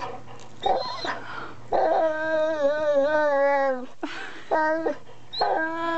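Boxer-Labrador mix dog moaning in long, wavering, drawn-out whines: a short sound, then a moan of about two seconds that sinks in pitch at its end, a brief one, and another long moan starting near the end. This is the contented 'talking' he does over his prized log.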